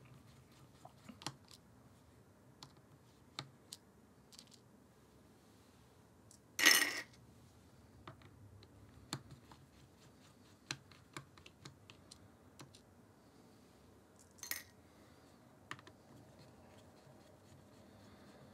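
Faint, scattered clicks and taps of a precision screwdriver and fingers working the small screws and body of a Nikon Z50 mirrorless camera. Two brief louder noises stand out, one about a third of the way in and a shorter one about three-quarters through.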